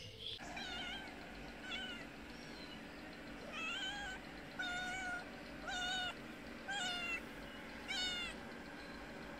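Cat meowing repeatedly and close up: about eight short, high-pitched meows roughly a second apart, a cat asking for food.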